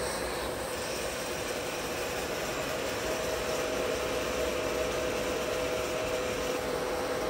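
WMW-Heckert universal milling machine running its table in power cross feed: a steady mechanical hum from the feed drive with a steady whine that grows a little stronger about three seconds in.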